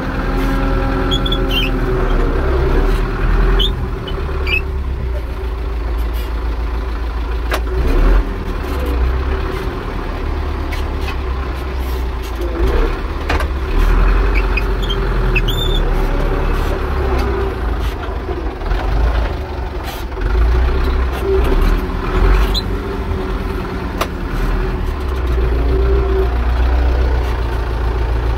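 Zetor 6245 tractor's four-cylinder diesel engine running steadily under load while plowing, with scattered clicks and knocks and a few brief high squeaks.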